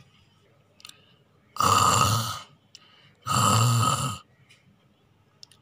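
Two loud snores, each under a second long and about a second and a half apart, acted out for a sleeping doll.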